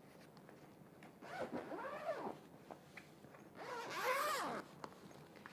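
Zipper being pulled open in two long strokes, the second louder, each rising and then falling in pitch.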